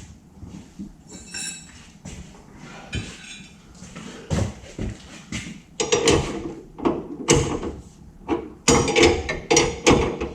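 Metal hand tools clanking and knocking against metal parts in irregular strikes, some with a short metallic ring, coming more often and louder in the second half.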